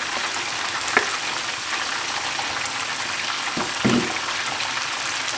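Onions, cashews and soy-vinegar sauce sizzling steadily in a non-stick frying pan as thick tomato sauce is spooned in, with a sharp tap about a second in and a short knock near four seconds.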